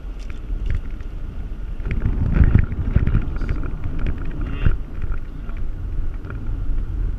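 Vehicle driving on a rough dirt road, heard from its dashboard: a low rumble of engine and tyres with rattles and knocks from the cabin as it goes over bumps, heaviest from about two to three and a half seconds in.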